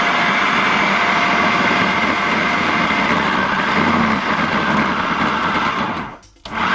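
Electric food processor motor running as it chops green fava beans with onion, garlic and herbs into a coarse mixture. It cuts off about six seconds in and starts again just before the end.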